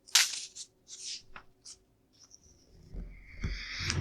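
Plastic LEGO pieces being handled and rubbed together on a table: a handful of short rustles and a click, then a longer, louder rustle with light knocks near the end.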